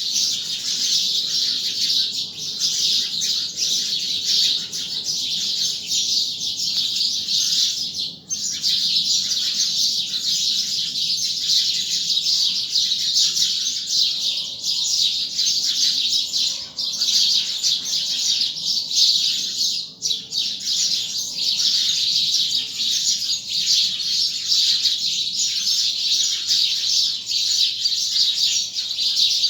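Dawn chorus of many small birds chirping at once, a dense, unbroken mass of high overlapping chirps that briefly drops away twice.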